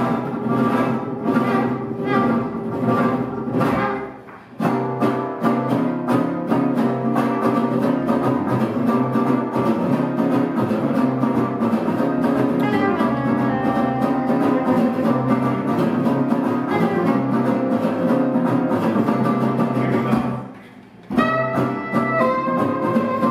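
Small jazz band of trumpet, trombone, soprano saxophone, guitar and upright bass playing live. The music breaks off briefly about four seconds in and again near the end, and after the second break the horns come back in together.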